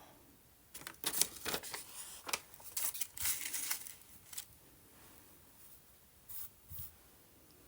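Paper being handled on a work table: a run of light scratchy rustles and small clicks in the first half, then a couple of soft sounds near the end.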